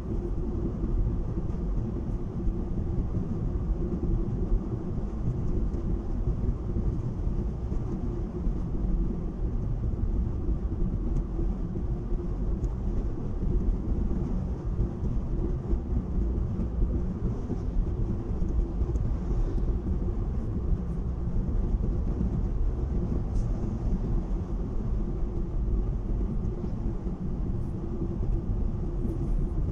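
Steady road and engine rumble inside a car's cabin at highway cruising speed, with a low steady hum running under it.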